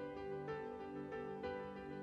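Quiet instrumental background music, with a new note entering about every half second over a held low tone.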